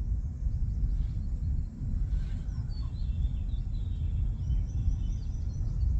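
Steady low rumbling wind noise on the microphone, with birds chirping faintly from about two seconds in.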